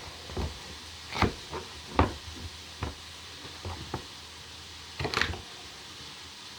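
Knife cutting celery on a chopping board in irregular knocks, about eight of them, over the steady sizzle of onions and carrot frying in oil in a pan.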